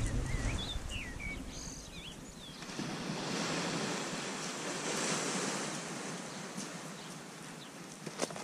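Small waves breaking on a sandy beach, with wind noise on the microphone. A bird calls a few times in the first couple of seconds, and there is a single sharp click near the end.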